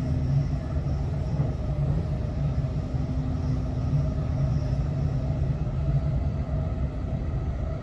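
Steady low rumble of a moving train, with a faint steady hum over it.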